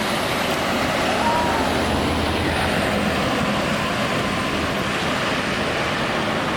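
Heavy diesel bus engine running steadily close by, a low rumble with traffic noise over it.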